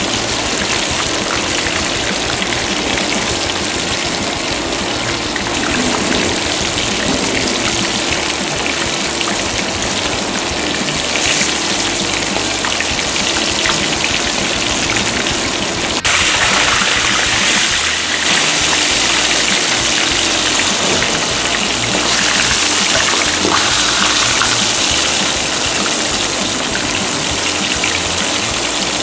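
Hot oil sizzling and crackling as a whole seasoned guinea pig fries in a pan for cuy chactado. The sizzle gets suddenly louder and brighter about halfway through.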